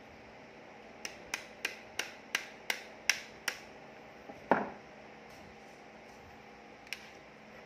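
Plastic parts of a Canon laser toner cartridge clicking as it is handled during reassembly: a run of about eight sharp clicks, roughly three a second, then a louder knock and one more click near the end.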